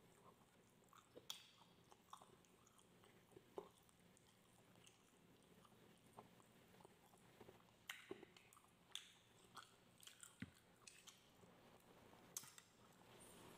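Faint chewing and mouth clicks of a person eating rice and grilled pork barbecue by hand, with scattered soft sharp ticks.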